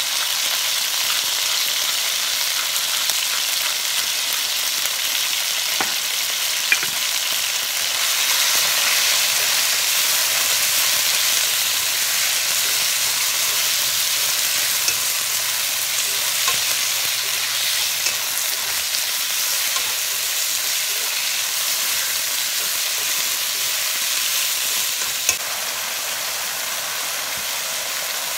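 Sliced chicken sizzling steadily as it fries in a hot wok, stirred with wooden chopsticks, with a few sharp clicks.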